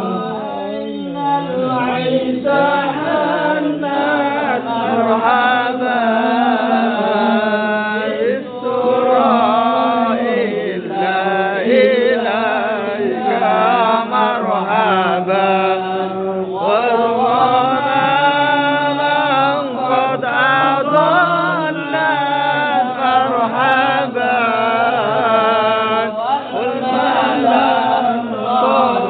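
Men chanting Arabic sholawat, devotional praise of the Prophet, with the lead voice amplified through a microphone. It runs in long melodic phrases with short breaks between them.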